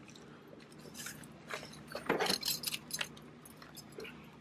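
Scattered clicks, knocks and rustling as things are handled and loaded into the back seat of an SUV. The sounds are loudest in a cluster about two seconds in.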